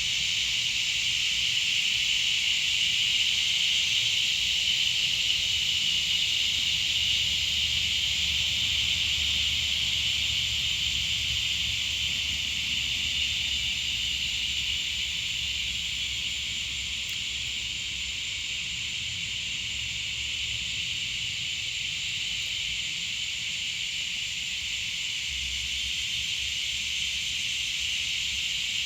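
Chorus of cicadas buzzing in one continuous high-pitched drone, swelling slightly and easing a little later on.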